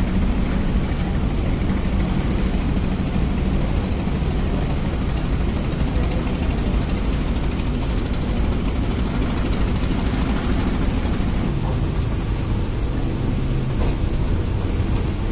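A ferry's diesel engines running with a steady low hum and rumble, heard from on board; the hum's pitch drops slightly about eleven seconds in.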